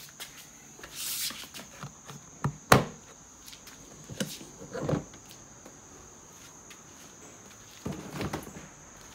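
Hard plastic clicks, knocks and rattles from a Craftsman stacking tool box and its clear-lidded organizer tray being opened, closed and latched, with one sharp snap a bit under three seconds in.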